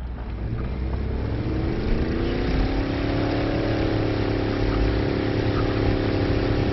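Car engine pulling hard up a steep grade: its pitch rises over the first few seconds as it revs up, then holds at a steady drone.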